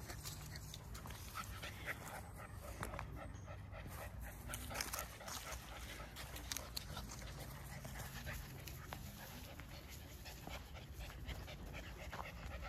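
A German Shepherd panting steadily.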